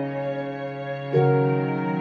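Slow, soft background music of sustained chords, moving to a new chord about a second in.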